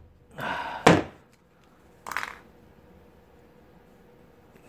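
A hammer striking a plastic clothing security tag once, sharply, about a second in, with a softer, shorter noise about two seconds in; the tag is holding out against the blows.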